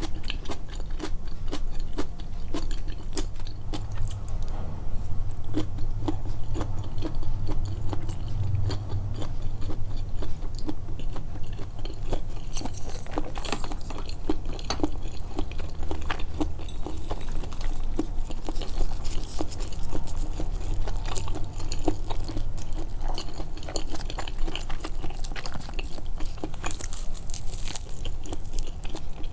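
Close-miked chewing and biting, amplified so the wet mouth clicks and smacks stand out, going on irregularly throughout.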